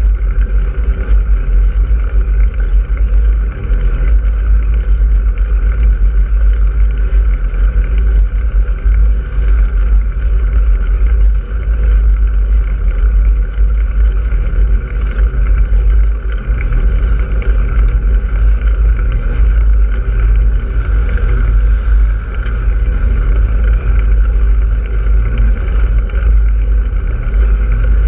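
Steady, loud wind rumble on the microphone of a camera moving along a road, with a constant higher noise band over the deep rumble.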